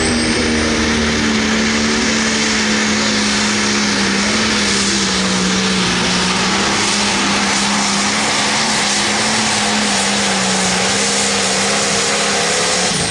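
Turbocharged diesel engine of an International 966 Limited Pro Stock pulling tractor running flat out under load as it drags the sled, its pitch sagging slowly as the load builds. Near the end the engine note drops off sharply as the throttle comes off.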